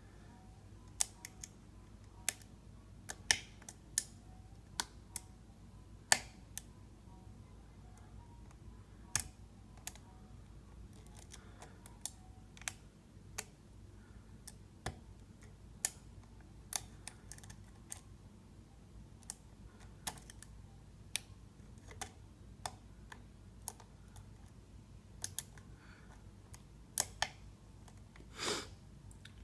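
Single-pin picking of a Ruko Scandinavian oval cylinder lock: small, irregular metallic clicks and ticks of the pick and tension wrench working the spool and serrated pins in the keyway, spaced a second or more apart, over a faint steady low hum.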